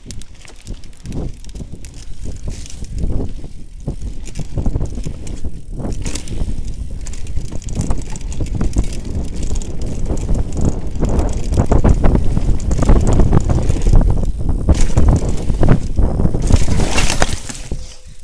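Mountain bike ridden fast down a dirt forest trail: tyres rumbling and the bike rattling over roots and bumps, growing louder as speed builds. Near the end a loud hissing scrape through leaves as the rider crashes, then the noise drops away suddenly.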